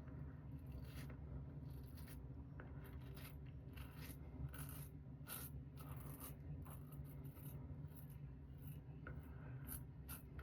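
Alpha Latherflo prototype safety razor scraping through lathered stubble, shaving against the grain on the upper lip: many short, faint, irregular scratchy strokes.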